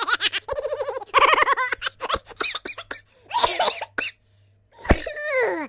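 A string of silly, cartoonish laughing sound effects in quick, rapidly pulsed bursts. Near the end comes a sharp knock, then a voice sliding down in pitch.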